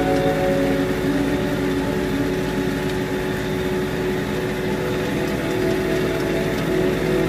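Tractor engine running steadily while it drives a rotary tiller through greenhouse soil.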